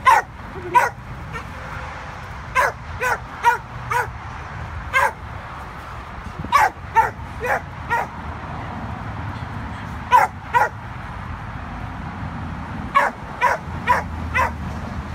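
A dog giving short, high-pitched yipping barks, about seventeen in all, in quick runs of two to four with pauses of a second or more between runs.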